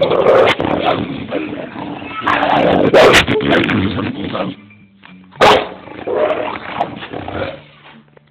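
Boxer-type dog growling and barking loud and close, with two sharp, loudest outbursts about three and five and a half seconds in.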